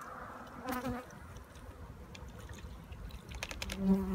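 Honeybees buzzing close by: a short buzz that drops in pitch about a second in, and a steady buzz that starts near the end. A few light clicks of plastic containers being handled come just before the steady buzz.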